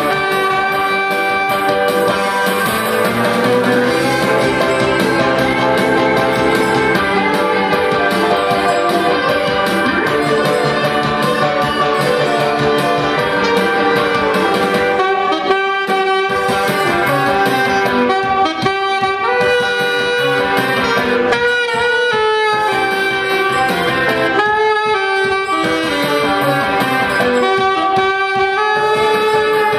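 Saxophone playing a melody over an accompaniment with a steady beat.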